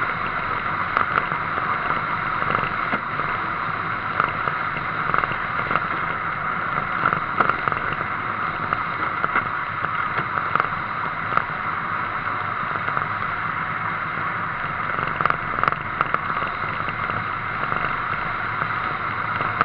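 Steady rush of tyre and wind noise from a vehicle travelling along an open road, picked up by a camera mounted on its body, with a few faint clicks scattered through.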